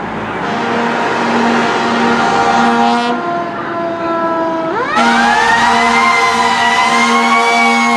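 Fire engine air horns blasting in short repeated bursts. About five seconds in, a siren winds up quickly to a high, slowly wavering wail over the horns, as the engine runs code 3 to a fire.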